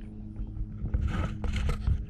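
Lake water sloshing and splashing against the nose of an inflatable paddleboard, with clicks and splashes growing louder from about a second in. Under it runs a steady low hum.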